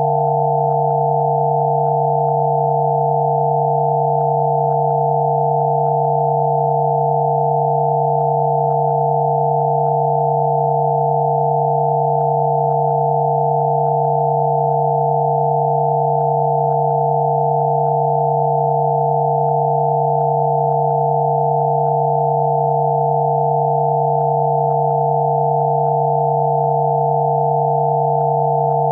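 Electronically generated pure sine tones for Rife frequency therapy: a low steady hum with several higher steady tones sounding together, held unchanging.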